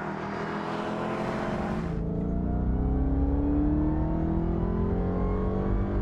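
Dodge Challenger SRT Super Stock's supercharged 6.2-litre HEMI V8 accelerating, its pitch climbing slowly and steadily. A hiss over the engine stops abruptly about two seconds in.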